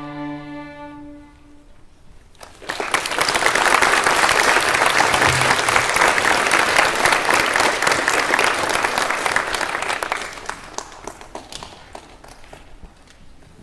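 The last held notes of the piece fade away, then an audience applauds for about eight seconds, thinning to scattered claps near the end.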